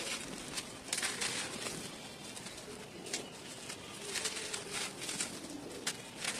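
Dry red dirt chunks crumbling and crunching in bare hands, with loose grit sifting down onto more dirt: an irregular run of sharp, gritty crackles.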